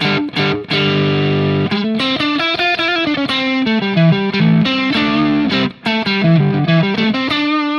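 Electric guitar played through an overdrive pedal running above its standard 9 volts. It plays a held chord, then a riff of single notes, ending on a held note. The over-voltage gives a fuller, thicker tone with a little less distortion.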